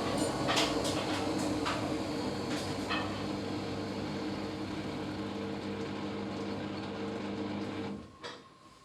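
Samsung washing machine running with a loud, steady mechanical noise and hum, with a few sharp clicks or rattles in the first three seconds, then cutting off suddenly about eight seconds in. This is the abnormally loud noise that is the machine's fault.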